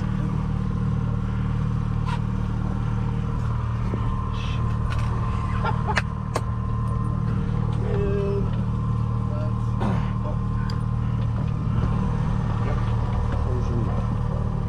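Boat's outboard engine running steadily at trolling speed, a constant low hum, with a few light clicks and knocks on the deck.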